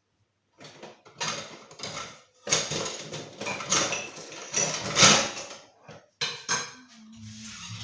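Dishes and metal kitchen utensils clattering and clinking, a rapid run of sharp knocks and scrapes, while food is prepared.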